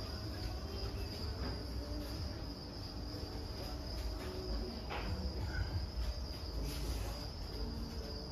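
Crickets chirping continuously at a steady high pitch, over a low background rumble.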